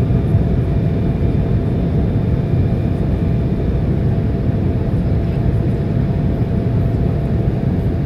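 Steady cabin roar of an airliner's jet engines and airflow during the climb after takeoff, heard from inside the passenger cabin, with a faint steady whine over it.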